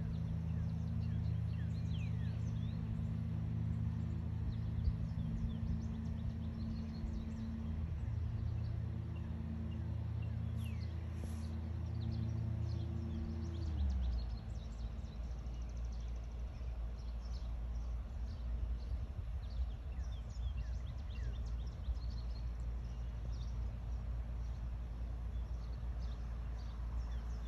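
Outdoor ambience: a steady low machine hum that stops about halfway through, leaving a low rumble, with many faint short high chirps from birds or insects throughout.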